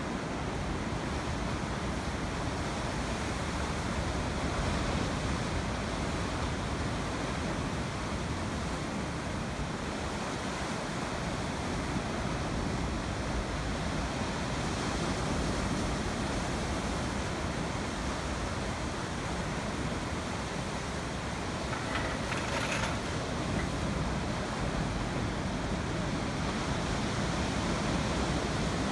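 Heavy sea surf breaking over offshore reefs and rocks and washing over a stone harbour wall: a steady, continuous rush of waves with no distinct single crashes.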